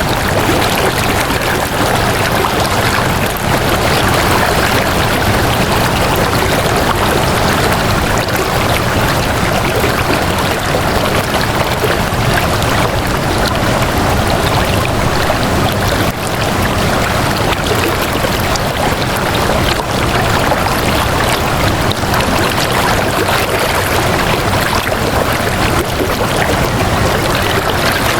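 Flowing water, a steady unbroken rush like a stream.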